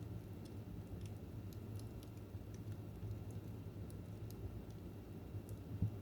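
Fire in a fireplace crackling: scattered small crackles and pops over a steady low rumble, with one louder pop near the end.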